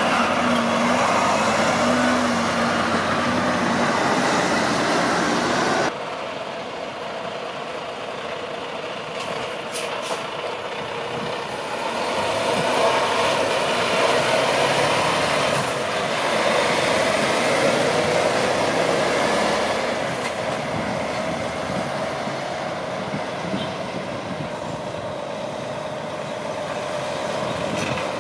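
A series of diesel semi-trucks pulling out and driving past, engines running with tyre noise. The sound drops off abruptly about six seconds in, swells again in the middle as the next truck passes, and rises once more near the end.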